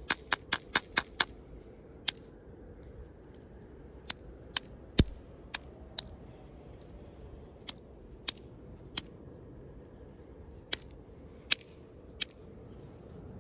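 Hornstone being knapped with a heavy bopper: sharp clicking strikes, a quick run of about half a dozen in the first second, then single strikes at irregular gaps of half a second to two seconds, the loudest about five seconds in. The knapper is working away a damaged, cracked part of the piece.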